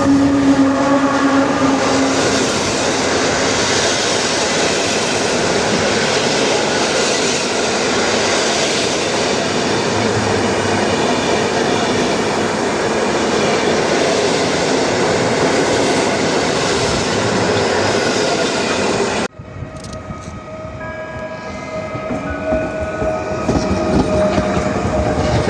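A train horn sounds one steady note for about the first two seconds, over the loud noise of a train passing close by, its wheels clattering on the rails. About 19 seconds in, the sound drops off abruptly, then builds again as more train noise comes in, with faint steady tones.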